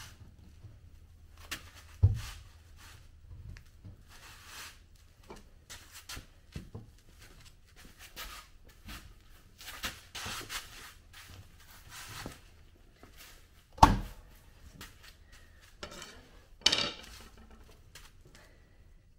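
Scattered clinks, scrapes and rubbing as a large screwdriver and a cloth are worked around a Sherp tire's metal bead-lock ring. There are two sharp knocks, about two seconds in and near fourteen seconds, the loudest near fourteen seconds.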